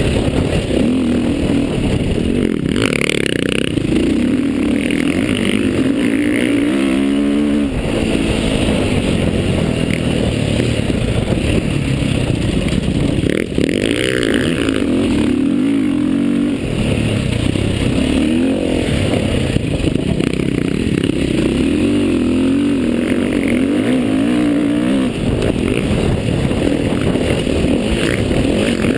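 Dirt bike engine running hard under the rider, revving up and down, its pitch climbing in sweeps several times as it accelerates.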